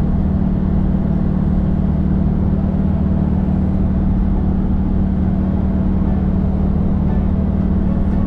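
Steady low drone of a vehicle cruising at highway speed, heard from inside the cabin: engine and tyre noise with no change in pace.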